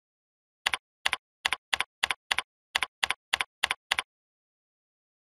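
Computer keyboard typing: eleven keystrokes at about three a second, each a quick double click, with a short pause about halfway through.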